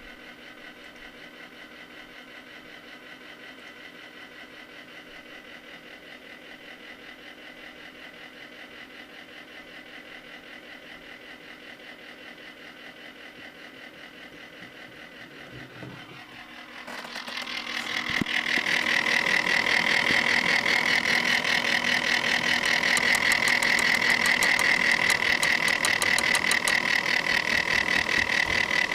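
Corsair H80 liquid cooler pump running with a steady hum, then about two-thirds of the way through a much louder, high-pitched grinding noise sets in and keeps going: the sign of the failing pump.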